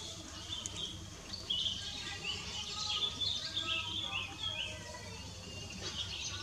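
Birds chirping in quick, high-pitched notes over a steady outdoor background hum, the chirps busiest through the middle.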